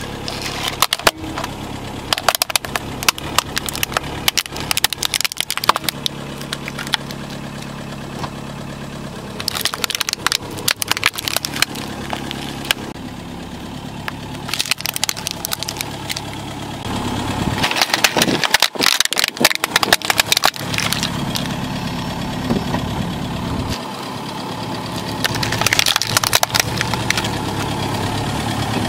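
Car tyre rolling over plastic toy vehicles, crushing them in four bouts of cracking and snapping plastic, over the steady hum of the car's idling engine.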